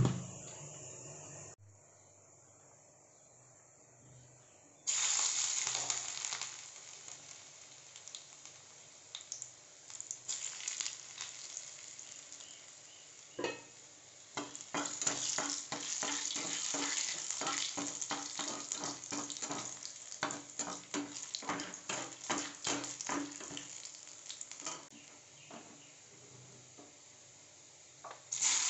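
Whole spices frying in hot oil in an aluminium kadai. A sizzle starts suddenly about five seconds in, turns into a crackling spatter of many small pops that is densest in the middle and thins out, and a fresh loud sizzle starts near the end as more ingredients hit the oil.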